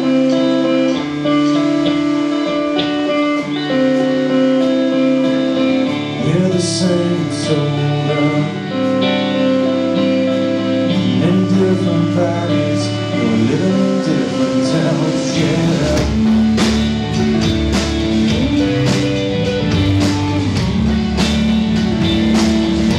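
Live rock band playing: two electric guitars, electric bass and drum kit, with a man's lead vocal coming in about six seconds in. About two-thirds of the way through, the low end and cymbals get heavier.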